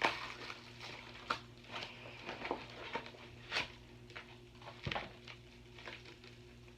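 Scattered light clicks and rustles of packing material being handled while a boxed radio is unpacked, with a heavier knock about five seconds in, over a faint steady hum.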